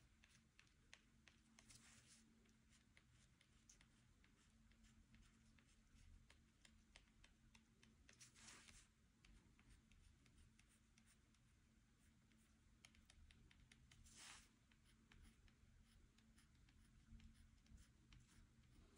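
Faint scratching of a pen drawing on paper: many small ticks, with longer strokes about two, eight and a half and fourteen seconds in.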